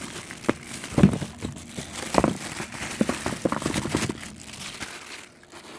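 Plastic packaging crinkling and rustling, with small clicks and knocks, as a wrapped cordless tool is unwrapped and handled; it dies down near the end.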